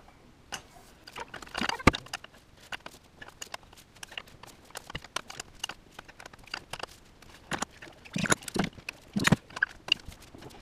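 A spanner turning an exposed twin camshaft into timing position: irregular metallic clicks and knocks of tool on metal, with a few louder knocks near the end.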